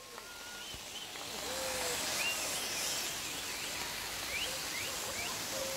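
Handheld fountain sparklers hissing as they are carried close past, the spray growing louder over the first two seconds and then holding steady. A few short, high, rising whistle-like calls sound over it.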